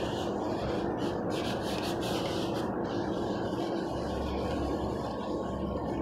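Soapy scrub sponge rubbed and squeezed against the bottom of a plastic tub of sudsy water, a continuous wet rubbing sound.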